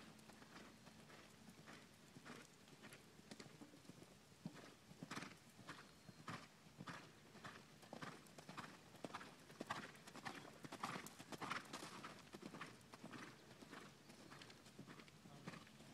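Hoofbeats of a ridden Quarter Horse gelding loping on soft arena dirt, a quick steady run of muffled strikes that grows louder toward the middle and fades again near the end.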